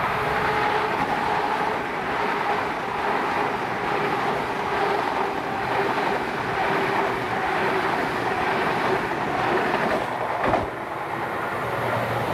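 A train running along the track, a steady rumble with a held whine through it. One sharp knock comes about ten seconds in.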